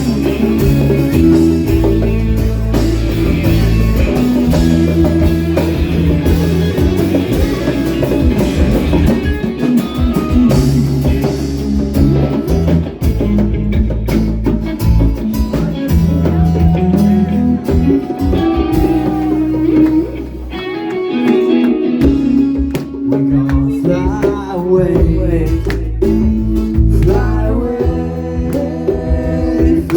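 Live band playing a blues-rock instrumental passage: electric guitar, bass and drum kit, with a sung or lead guitar line rising in the latter part.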